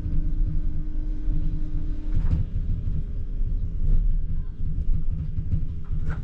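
ČKD Tatra T6A5 tram running along the track, heard from the driver's cab: a steady low rumble with a constant hum that stops about two seconds in. A few sharp knocks come through the rumble.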